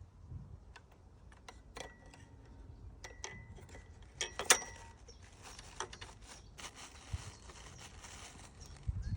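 Irregular light clicks and clinks over a low steady hum, with a louder clatter about four and a half seconds in.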